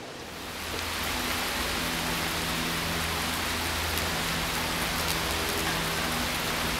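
Steady rain, an even hiss that swells in about half a second in, with a low steady hum underneath.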